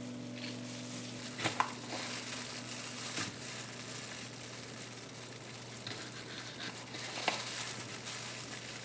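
A knife cutting habanero peppers on a cutting board, with a few sharp clicks of the blade against the board. Disposable plastic gloves crinkle and rustle throughout.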